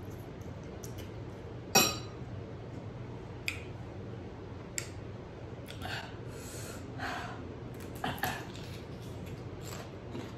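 Eating utensils clinking against a dish of noodles, with softer eating noises between. One sharp, ringing clink about two seconds in is the loudest, followed by a scatter of lighter taps and scrapes.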